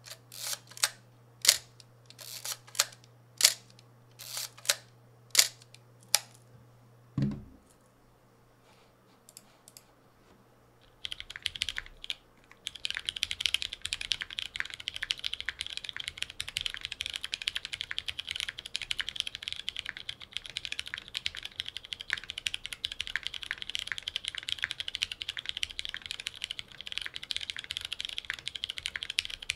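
About ten sharp, separate mechanical clicks from a film camera being handled, then a low thump as it is set down. After a short quiet gap, about eleven seconds in, fast continuous typing starts on a 60% custom mechanical keyboard with lubed switches, a half-aluminium plate and GMK keycaps.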